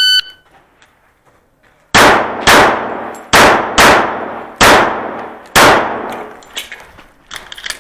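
A shot timer beeps once, and about two seconds later a Sig Sauer Emperor Scorpion 1911 pistol in .45 ACP fires six shots in quick succession over about three and a half seconds, each with a decaying tail. A few faint clicks follow near the end.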